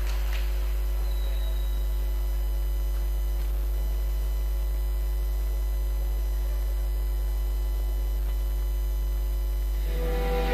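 Steady low electrical mains hum with no other sound of note, until music starts near the end.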